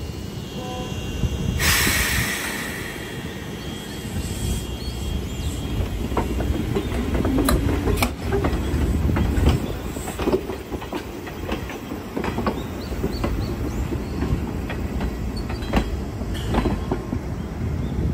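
Izuhakone Railway Daiyuzan Line electric train running on the track, a steady low rumble with the wheels clicking over rail joints. There is a short burst of hiss about two seconds in.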